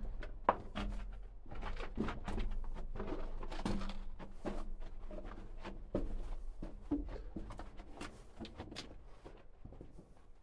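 Footsteps on the rocky floor of a mine tunnel: a string of irregular scuffs and knocks, with the closed-in sound of a small underground space.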